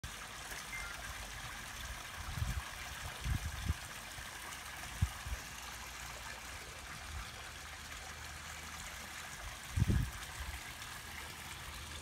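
A small creek trickling over rocks: a steady, even hiss of running water. A few short dull low thumps come through it, the loudest near the end.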